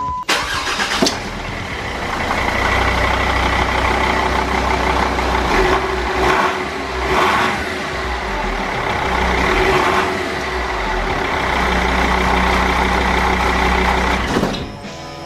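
Jeep Grand Cherokee's Mercedes 2.7 CRD five-cylinder common-rail turbodiesel running, with a steady low drone and a couple of brief swells in the middle. It is being run to test the repair after the exhaust clamp was fitted.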